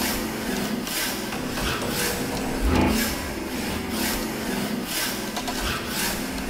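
Rhythmic rasping, scraping noise repeating about twice a second, with one deep thud about three seconds in, laid down as the film's soundtrack.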